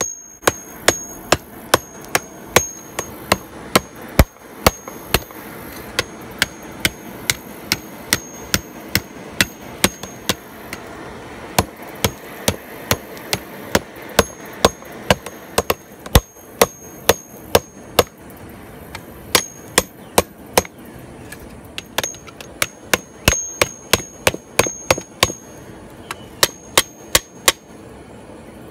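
Hand hammer striking red-hot lawnmower-blade steel on a steel block anvil while the spear socket is folded into a cone. The blows come about two a second in runs with short pauses, and many end in a brief high ring.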